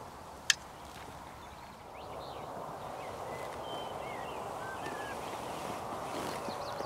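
A single sharp click about half a second in, then quiet rural outdoor ambience with faint small-bird chirps and short whistles.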